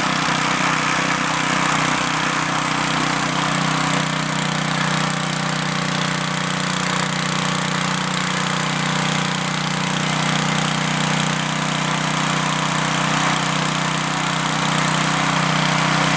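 Single-cylinder four-stroke Briggs and Stratton engine, the warmed-up riding-mower type, running steadily on a water-brake dynamometer under a light load of about 1 pound.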